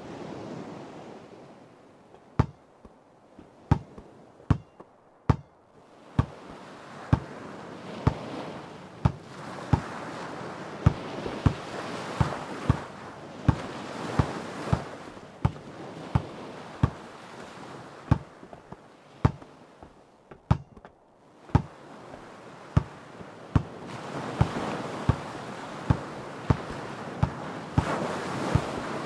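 A basketball dribbled steadily on hard ground, one sharp bounce a little more than once a second, starting about two seconds in. Under it, ocean waves wash in and out, swelling and fading.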